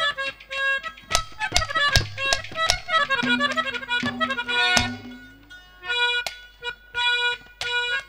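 Haryanvi ragni accompaniment: a harmonium plays a melody of held notes, cut through by sharp drum strikes.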